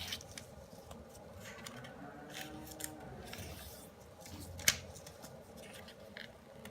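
Origami paper being folded and creased by hand: light rustling and crackling of the paper, with one sharp click about two-thirds of the way through.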